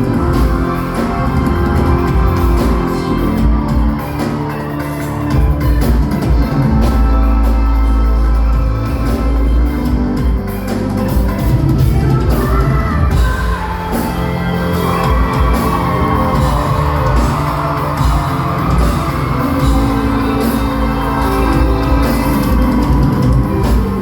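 Loud live band music, with audience shouts and whoops over it.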